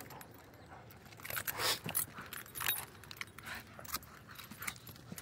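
Metal tags on a German Shorthaired Pointer's collar jingling as the dog spins and shakes a rope toy. The jingles come unevenly, loudest from about one to two seconds in and once more a little later.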